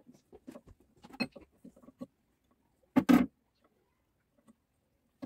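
Small metal engine parts clicking and tapping as they are fitted by hand into an open engine crankcase, with a louder double clatter about three seconds in.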